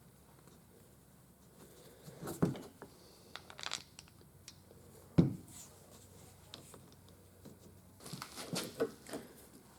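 Hands working on hydraulic cylinder parts and tools: scattered light clicks, scrapes and rustles, with one sharp knock about five seconds in.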